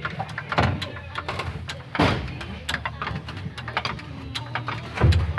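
Irregular metallic clicks and clunks as a car's gas tank is worked up into place with a jack, with louder knocks about half a second, two seconds and five seconds in.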